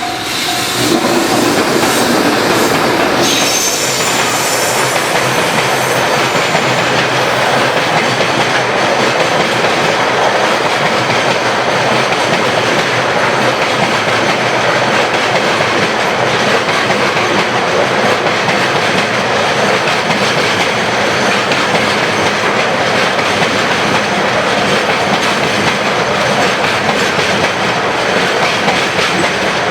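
A long JR Freight train running past close by, its wagon wheels making a loud, steady rolling noise on the rails with no let-up.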